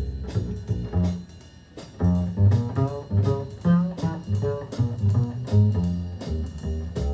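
Music with plucked guitar and bass notes played back through loudspeakers, with a brief lull about a second and a half in.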